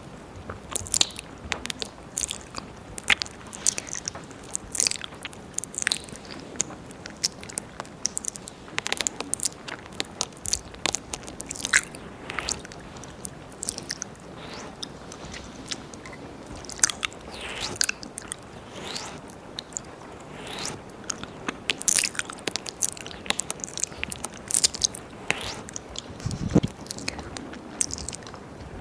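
Close, wet mouth sounds and ear licking on a binaural microphone: rapid tongue clicks, smacks and slurps, irregular and crisp, over a faint steady hiss.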